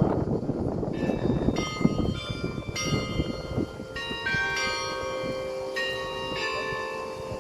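Church bells pealing: several bells struck one after another, about one or two strokes a second, each stroke ringing on and overlapping the next.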